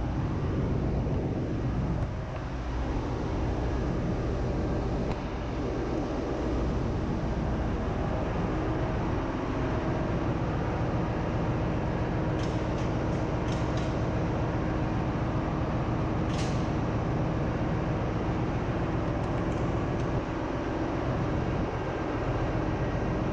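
Steady machinery drone of a ship's engine room with the auxiliary machinery running, heaviest in the low range. A few short sharp clicks come about halfway through.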